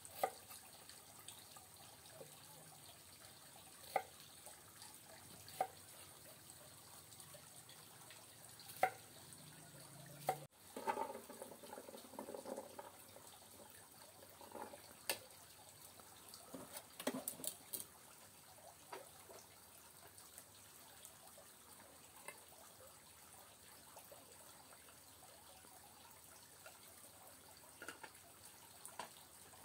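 Quiet water dripping and trickling, with sparse small clicks and knocks, and a couple of seconds of denser, louder splashing or handling noise about a third of the way in.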